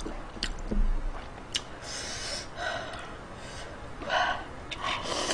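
Cup ramen noodles slurped in several noisy sucks of air, the longest near the end, after a few sharp clicks in the first two seconds.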